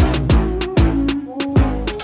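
Background music with a steady beat: a deep kick drum, sustained bass and sharp percussion hits.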